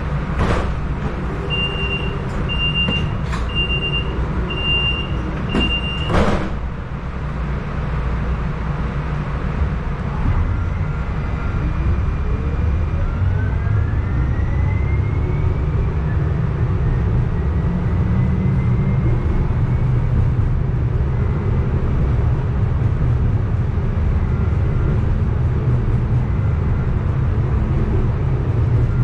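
Streetcar door-warning chime: a row of about six short high beeps, ending in a knock as the doors shut about six seconds in. Then the electric traction motors whine, rising in pitch as the streetcar pulls away, over a steady low rumble of wheels on track.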